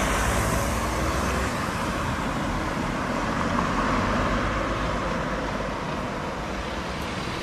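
A car passing close by and driving off down the road, its tyre and engine noise loudest at first and then slowly fading.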